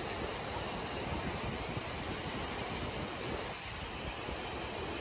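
Steady rushing noise of river water, with wind buffeting the microphone.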